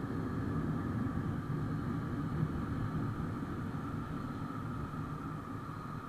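Motorcycle riding along a wet road: steady engine and wind rumble with road noise, easing off slightly near the end.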